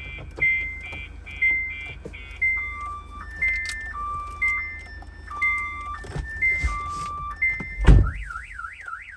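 Car alarm siren cycling through its tones: first a fast two-tone chirp, then a slower stepped pattern of alternating high and lower beeps. Near the end there is a loud thump, and right after it the siren switches to a rapid up-and-down warble.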